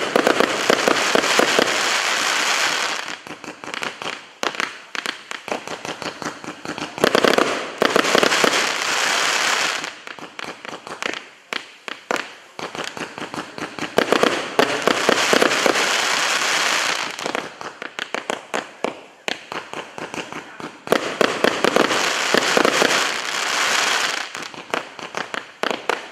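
Multi-shot firework cake "Zvonkie kolokola" ("Ringing Bells", SP1015001) firing: a run of sharp cracks, with a dense crackling salvo breaking out about every seven seconds, four times in all.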